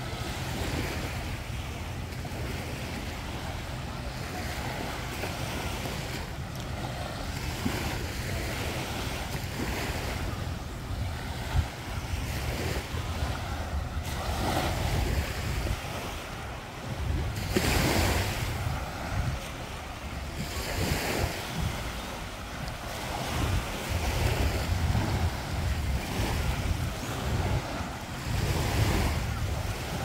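Waves breaking and washing up on a sandy beach in repeated swells, with wind rumbling on the microphone.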